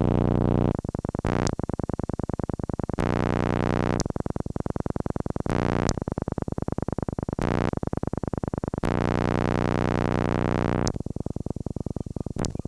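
Synthesizer music: a held low chord that keeps breaking into stretches of rapid, machine-gun-like stuttering where the sound is chopped on and off many times a second, then returns to the steady chord.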